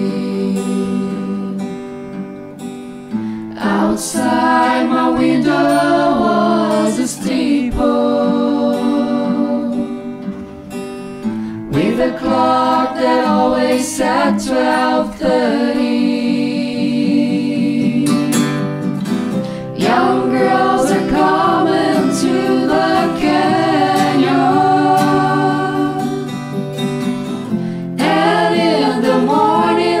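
Music: a song with singing and several voices together over guitar, in phrases with short breaks between them.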